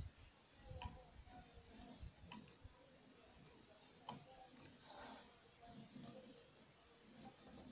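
Near silence broken by a few faint, scattered clicks and ticks from a small homemade single-cylinder model engine's flywheel and linkage as it is handled.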